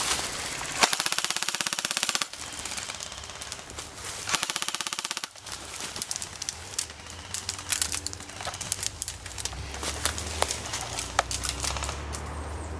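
Airsoft rifle firing two full-auto bursts, each a rapid rattle of shots: the first about a second in and lasting over a second, the second shorter, around four seconds in. After that come scattered single snapping shots.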